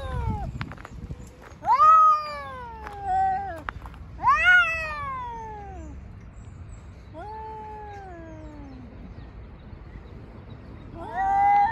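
Cats yowling at each other in a standoff: four long, drawn-out threat yowls, each rising quickly and then sliding slowly down in pitch, the third one fainter. This is the warning caterwaul of two toms squaring up for a fight.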